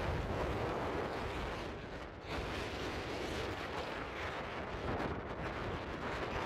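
Strong wind buffeting the camera microphone: a low rumbling rush that rises and falls in gusts and dips briefly about two seconds in.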